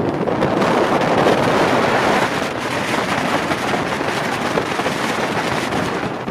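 Wind rushing over the microphone and water hissing past the hull of a rigid hull inflatable boat (RIB) under way at speed. The sound is a loud, steady rush.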